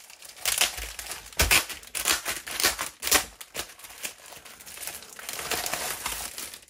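Plastic wrapper of a Lego Ninjago surprise bag being opened and handled, crinkling in quick, irregular bursts.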